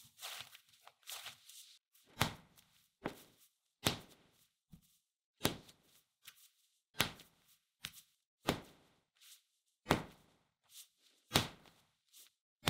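Soft bread dough being hand-kneaded by slamming it down onto a bamboo cutting board. A loud slap comes about every second and a half, with lighter slaps in between as the dough is lifted and folded. This slap-and-fold kneading builds the gluten in the milk-loaf dough.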